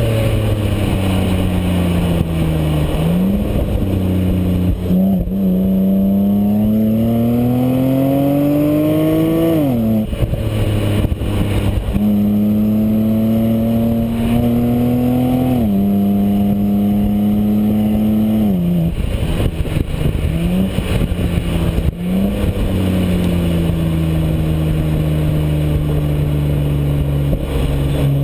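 Exhaust of a BMW Z4 sDrive30i (E89) 3.0-litre straight-six, heard right at the twin tailpipes while driving. The note climbs slowly under acceleration and falls sharply at each upshift, several times, over steady tyre and road noise.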